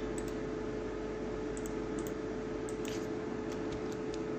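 A few faint clicks of a computer mouse over a steady electrical hum and hiss.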